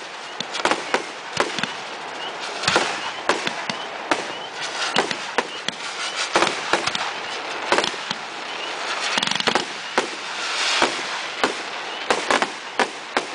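Fireworks going off: an irregular string of sharp bangs and crackling pops, several close together at times, over a continuous hiss of burning fountains and rising comets.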